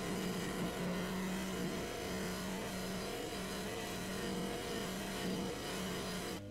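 Bench polishing wheel running with a rusty steel lathe bar pressed against it, a steady buffing hiss over the motor's hum as the surface rust is polished off.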